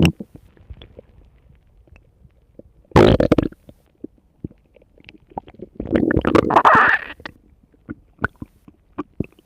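Stomach growling: a short gurgle about three seconds in and a longer rumble around six to seven seconds in, with faint pops and clicks in between.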